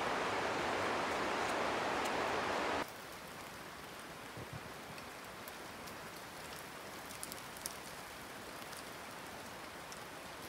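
A river rushing over rocks: a steady rush of water that cuts off abruptly about three seconds in. After that there is only a much quieter faint hiss with a few light ticks.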